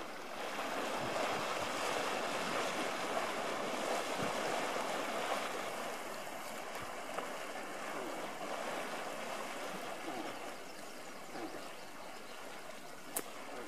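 Steady splashing and rushing of water as a cow moose wades chest-deep through a lake, pushing a wake. A single sharp click near the end.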